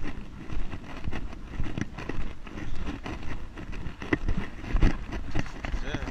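Walking steps on a pavement, heard through a GoPro carried by the walker: irregular low thuds about twice a second, with wind buffeting the microphone over a steady street rumble.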